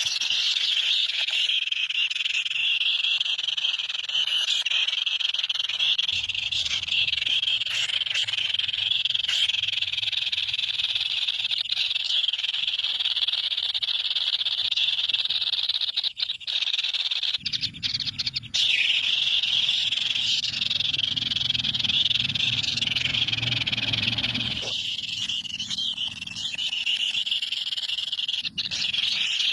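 A dense, continuous chorus of high-pitched chirping from many small animals, running without a break. A low hum joins it twice, for several seconds each time.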